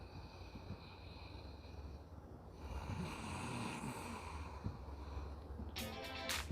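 A man snoring, with two long snoring breaths: a fainter one in the first two seconds and a louder one about three to four seconds in. Music with a strummed guitar starts near the end.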